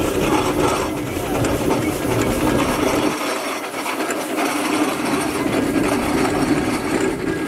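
Steam traction engines running, a steady mechanical clatter; a low rumble close by drops away about three seconds in.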